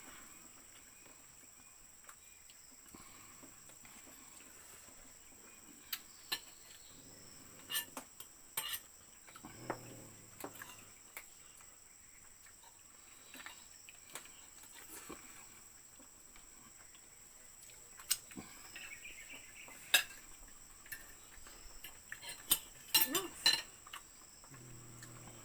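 Spoons and forks clinking against plates while eating, a scattering of sharp clinks that come thickest near the end, over a steady high-pitched insect drone.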